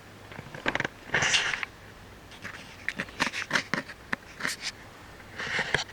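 Handling noises close to the microphone: two short rustles and a run of small clicks and taps.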